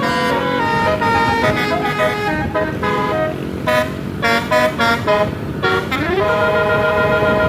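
Bus's telolet basuri musical horn playing a quick tune of short multi-note toots, then about six seconds in sliding up into one long held chord.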